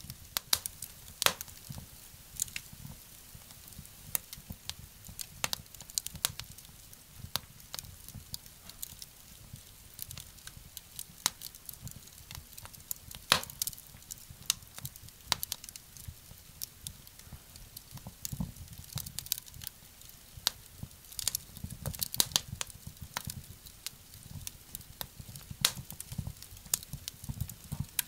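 Wood fire crackling in a small wood-burning stove: irregular sharp pops and snaps over a low steady rumble.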